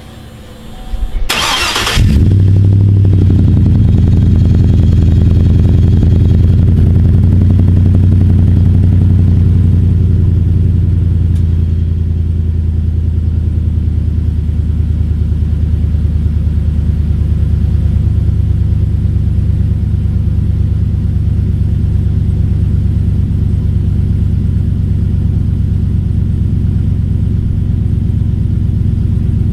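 A 2011 Chevy Suburban 2500's L96 6.0-litre V8, breathing through JBA short headers and a Flowmaster FlowFX exhaust, cold-started: the starter cranks briefly and the engine catches about two seconds in, then runs at a steady fast cold idle that eases slightly lower after about ten seconds.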